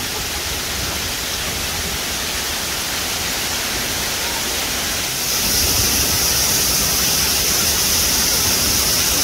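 Torrential rain pouring down in a steady hiss, a cloudburst dropping over an inch in ten minutes. It grows louder and hissier about five seconds in.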